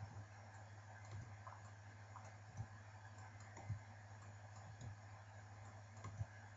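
Faint computer mouse clicks, about six spaced roughly a second apart, over a low steady hum.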